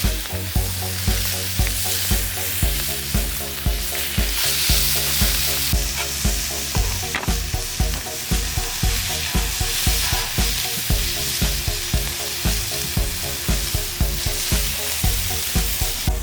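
Beef sizzling and frying on a hot griddle, a steady hiss. Background music with a steady beat of about two low thumps a second plays along with it.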